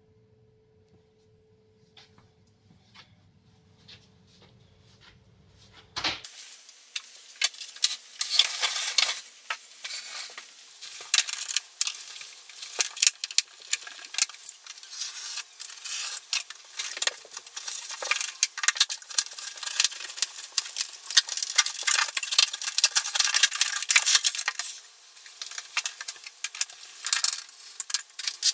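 Metal hand tools scraping, tapping and clinking at a vinyl plank floor and baseboard: a dense, irregular run of small scrapes and clicks that starts suddenly about six seconds in, after a nearly silent opening with a faint steady tone.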